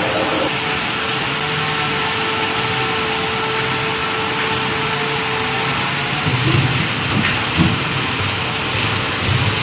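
Veneer peeling-line machinery running: a steady mechanical hum with a constant whine through the first half, then a heavier low rumble with a few knocks from about six seconds in. A high hiss cuts off about half a second in.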